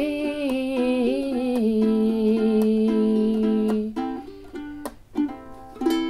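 A woman's voice holds the last sung note of a song over a strummed ukulele until about four seconds in. Then, after a short pause, a final down-strummed ukulele chord is left to ring and fade.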